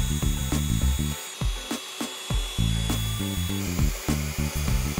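Electric air pump running on deflate, sucking the air out of an inflatable couch's backrest: a steady motor whine with a thin high tone, over background music with a stepping bass line.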